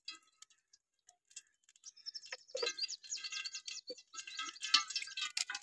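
Birds chirping in a busy run of high calls, starting about two seconds in, with a few faint soft taps underneath.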